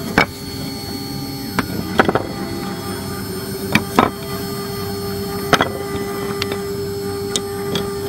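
CNC rotary engraving machine running with a steady hum and a held tone, with sharp clicks and knocks every second or two.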